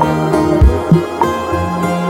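Background music: soft new-age instrumental with held plucked-string notes and a steady, gentle beat.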